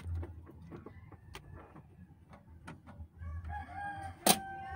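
A rooster crowing in the background, one drawn-out call over the last second and a half. Before it there are faint scattered clicks over a low hum, and a single sharp click comes near the end.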